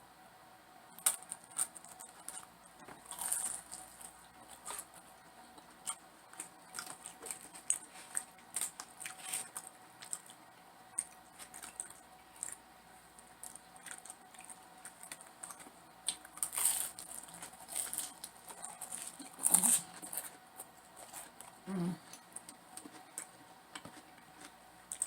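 Close-miked eating sounds: irregular chewing, wet mouth clicks and lip smacks, with a few louder clicks scattered throughout.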